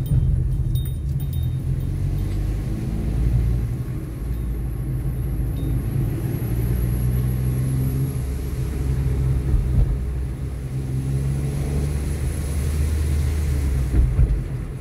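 Car engine and road noise heard from inside the cabin while driving: a steady low rumble, the engine note shifting a little. A brief thump near the end.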